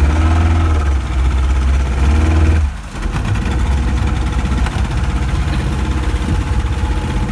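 Twin outboard motors of a speedboat running at low speed as it pulls away, a steady low engine hum that drops briefly a little under three seconds in and then runs on.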